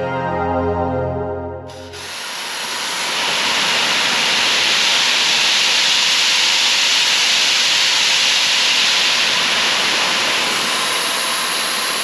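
Music fades out about two seconds in, and a high-pressure washer's water jet cuts in suddenly, spraying with a loud, steady hiss for the rest of the time.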